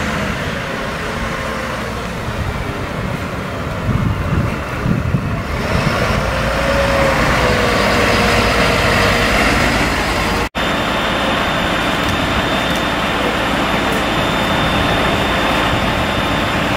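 Fire engine's diesel engine running as it drives up, growing louder about five seconds in. After a brief dropout about ten seconds in, a steady engine drone with a faint high whine continues.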